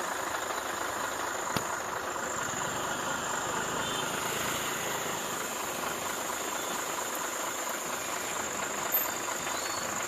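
A steady mechanical hum of an engine running, with one short click about one and a half seconds in.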